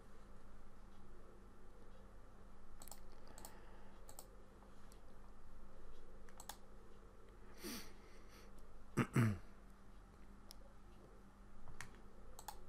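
Scattered single clicks of a computer mouse and keyboard. About nine seconds in comes a brief, louder low sound that falls in pitch.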